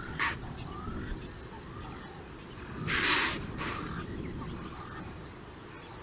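Impala alarm snorts: a short sharp snort just after the start, then a louder, longer one about three seconds in followed quickly by a shorter one, the herd's warning at approaching lions. Faint short rising chirps and a steady low rumble lie underneath.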